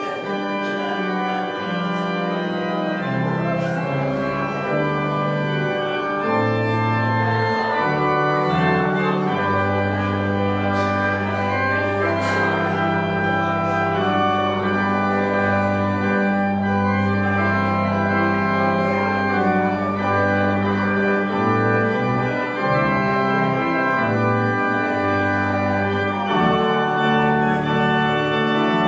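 Organ playing a slow piece of sustained chords over long-held low bass notes.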